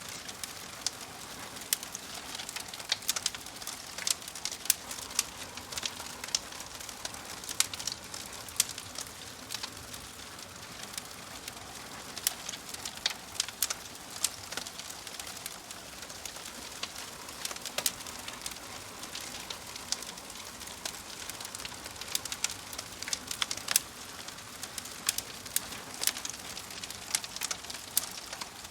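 Wood fire crackling, with frequent irregular sharp pops over a steady soft hiss.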